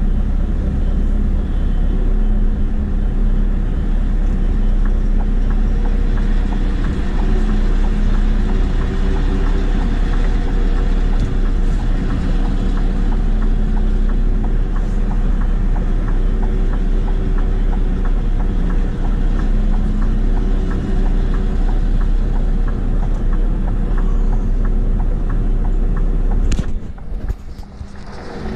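Scania R520's V8 diesel engine running steadily under light load as the truck reverses slowly, with a low, even drone. Near the end the engine sound cuts off abruptly.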